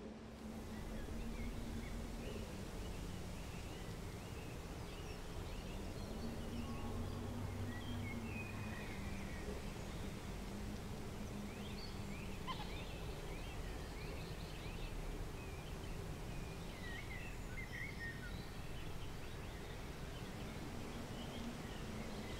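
Quiet outdoor ambience with a steady hiss and scattered short bird chirps. Beneath them a low hum swells and fades a few times.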